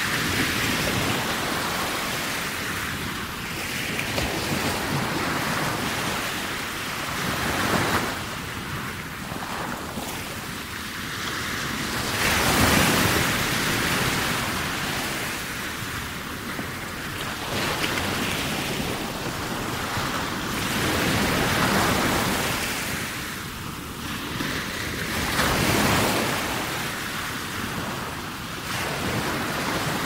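Heavy ocean surf: waves breaking one after another in a steady wash of noise that swells and falls back every four to five seconds, with the biggest break a little under halfway through.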